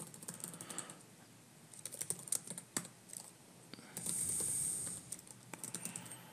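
Computer keyboard typing in quick bursts of keystrokes with short pauses between them, and a hiss lasting about a second about four seconds in.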